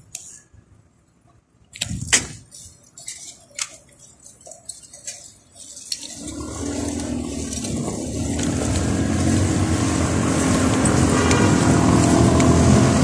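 A few scattered clicks and knocks, then from about halfway a rush of wind and street traffic noise with a low hum that swells steadily louder as the bicycle gathers speed along the road.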